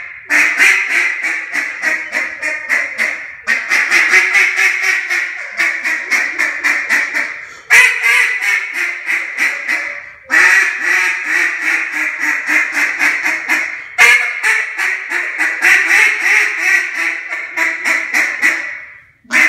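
Black River Duck Calls molded Tyrant duck call blown hard in fast runs of quacks, several notes a second, with short breaks for breath between the runs.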